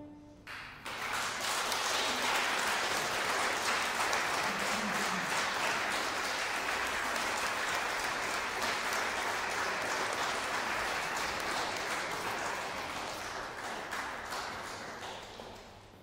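Audience applauding, starting about a second in, holding steady, and dying away near the end.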